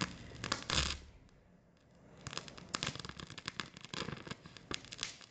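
Crackling and sputtering from a gas torch flame on brass brazing rod melting into a stainless steel joint: a burst of crackles in the first second, a short lull, then dense crackling from about two seconds in.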